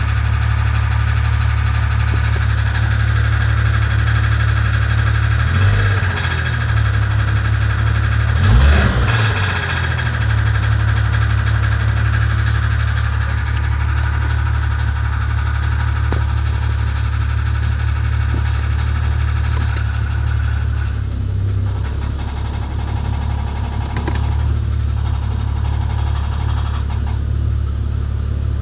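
1994 Jeep Grand Cherokee's 4.0-litre straight-six idling with a knock in the engine. It is briefly revved and falls back twice, about six and nine seconds in.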